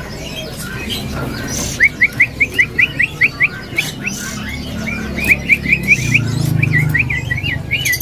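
Caged cililin songbird singing: runs of quick, short, upward-slurred whistled notes, about five a second, in phrases of a second or two with short breaks between them.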